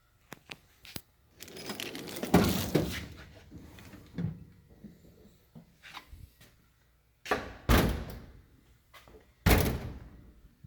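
Steel toolbox drawers being worked: a drawer slides with its contents rattling, then two sharp bangs a couple of seconds apart as drawers or a door are shut, with a few light clicks between.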